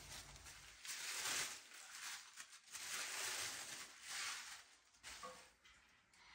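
Faint rustling and crinkling of tissue-paper wrapping and dried Sweet Annie bunches being handled, in a few short swells that die away about five seconds in.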